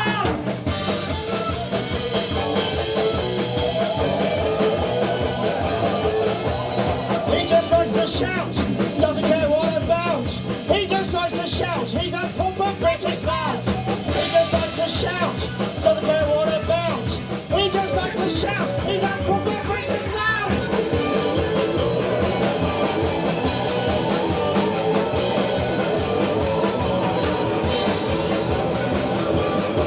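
Live rock band playing an instrumental passage with drum kit, bass and electric guitars, the pitched parts wavering and bending over a steady full-band wall of sound.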